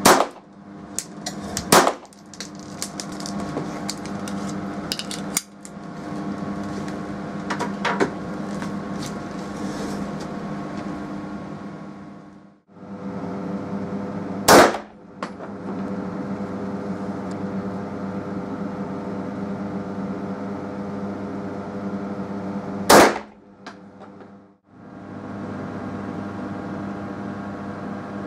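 Single pistol shots in an indoor range, each a sharp crack: a Margolin .22LR pistol at the start and again shortly after, with smaller cracks and clicks over the next several seconds. A 9 mm CZ 85 pistol fires twice, louder, midway and later. A steady hum with several fixed tones runs underneath.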